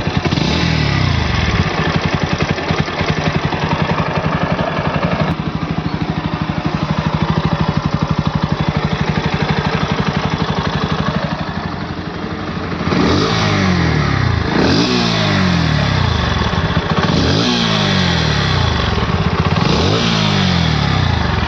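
Bajaj Pulsar NS160's single-cylinder engine idling with a heavy gadgad rumble, then revved four times near the end, each blip rising and falling back to idle. The owner judges the heavy rumble normal for the NS and puts it down to the phone's recording, not a fault.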